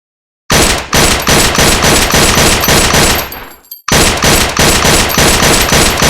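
Two rapid strings of gunshots, about four to five shots a second, separated by a short pause.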